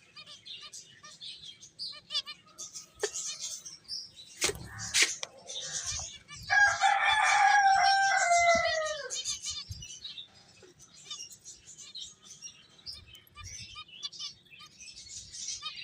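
Small finches chirping and twittering throughout, with a couple of sharp knocks about four and a half seconds in. Midway a rooster crows once, the loudest sound, a long call of about two and a half seconds that falls in pitch at its end.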